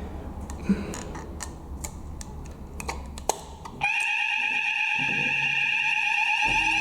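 A few light clicks, then about four seconds in a fire alarm sounder starts up during a weekly alarm test: a loud, steady, high-pitched electronic tone with a fast wobble.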